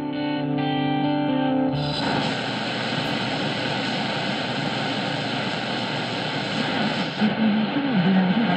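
Music with guitar playing from a Tecsun S-2200x shortwave receiver's speaker for about two seconds. It then cuts to steady shortwave static hiss as the receiver is tuned off the station. Near the end a weak station's voice comes up faintly through the noise.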